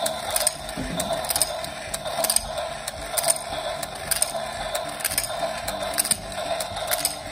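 Electric toy domino train running: its small motor and gears whir steadily, and its mechanism clicks a little faster than once a second as it drops and sets down each plastic domino.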